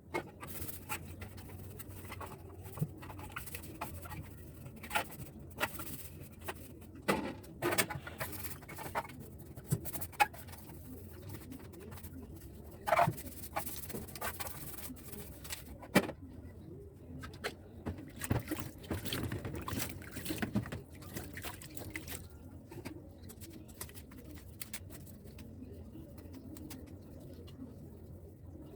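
Scattered light knocks and clatters of fridge shelves, trays and containers being wiped and put back into a small fridge.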